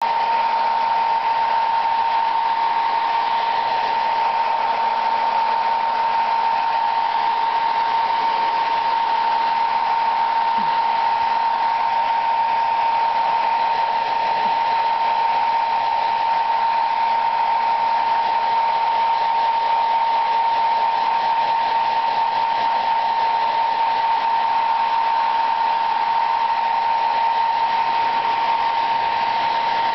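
Handheld hair dryer running steadily, a constant rush of air with a steady whine from its motor and fan.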